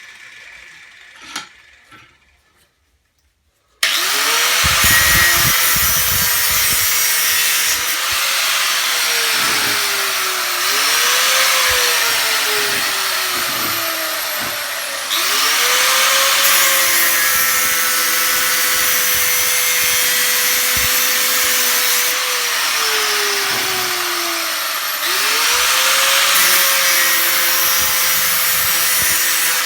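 Handheld electric power tool cutting scrap copper and brass: a loud hissing grind over a motor whine that sags as the tool bogs down in the metal and climbs back when it is eased off, several times over. It starts suddenly about four seconds in, after a few light clicks.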